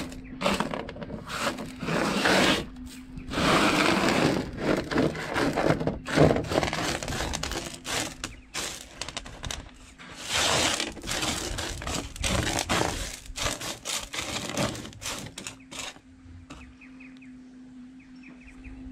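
Hands raking and pushing small pebbles of washed sapphire gravel across a metal sorting table: a busy scraping rattle of stones on sheet metal with many small clicks. It eases off near the end.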